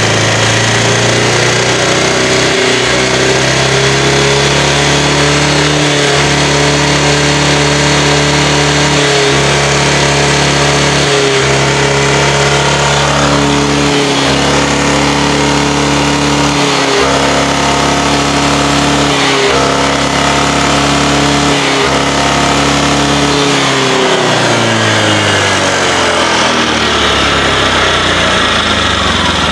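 Motor scooter engine revved and held at a steady raised speed through an exhaust whose catalytic converter is clogged with carbon: the note vibrates and cannot rev out freely. The revs climb over the first few seconds and fall back toward idle near the end.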